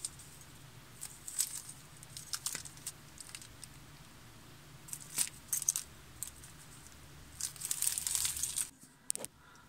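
Small plastic packet being handled, crinkling in a few short rustles, with a longer stretch of rustling near the end.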